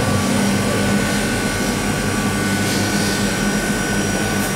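GETRA CMS 80 SL tilting cooking mixer running: the electric motor turns the stirring paddle in the steel bowl, with the gas burner firing underneath. It makes a steady hum over an even rush.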